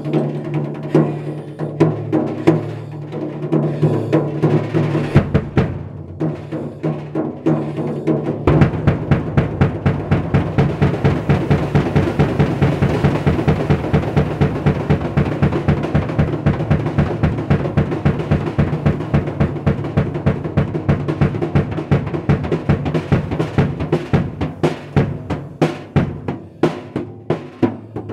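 A drum kit played with bare hands slapping the toms. At first the hits are loose and uneven. About eight seconds in, a fast, even run of bass drum beats from double pedals joins the hand beats, and it thins out again near the end.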